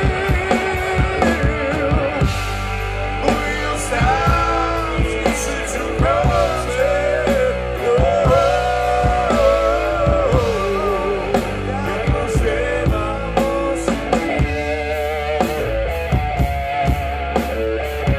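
Live rock band playing a rock ballad: electric guitar, bass guitar and drum kit, with a wavering melody line over the top through the middle, and the guitars filling out after about fourteen seconds.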